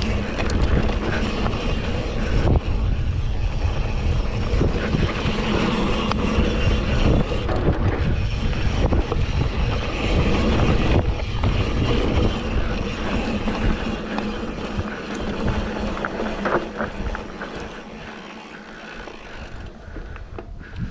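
Mountain bike ride on a dirt trail: wind buffeting the microphone and tyres rumbling over the ground, with scattered clatter from the bike. It is quieter for a few seconds near the end.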